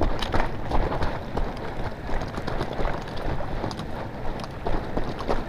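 Footsteps and the rustle and knock of clothing and gear as an airsoft player moves through woodland. Heard on a body-worn GoPro Hero3, with wind and handling noise on its microphone.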